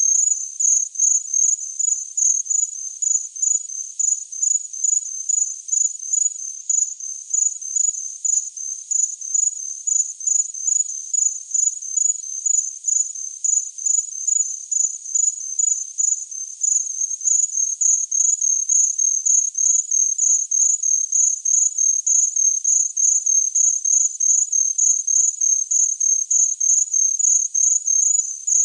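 A cricket chirping steadily in an even, unbroken rhythm of high-pitched chirps.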